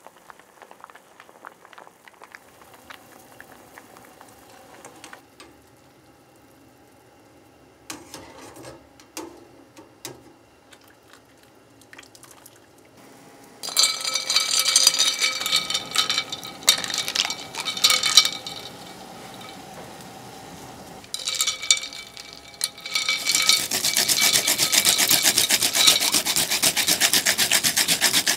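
Fresh wasabi root being rubbed in small circles on a grater, a steady rhythmic rasping that starts about two-thirds of the way in and is the loudest sound. Before it, a wire strainer is swished and clinks in ice water in a porcelain bowl, and before that there are only quiet handling sounds on a wooden cutting board.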